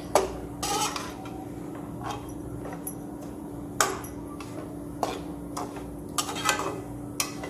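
Flat metal dosa spatula scraping and clinking against a heavy metal kadai while stirring a thick, grainy coconut-and-sugar burfi mixture: irregular scrapes and sharp clinks every second or so, over a steady low hum.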